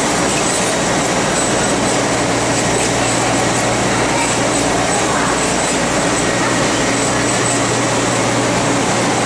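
Steady machinery noise of a surface-mount electronics assembly line running, an even mechanical din with a faint steady high whine over it.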